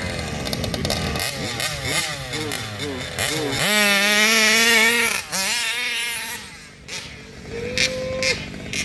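Two-stroke RC car engine revving, its pitch sweeping up and down, then held at high revs with a wavering note for about a second and a half before dropping away. A shorter burst of revving comes near the end.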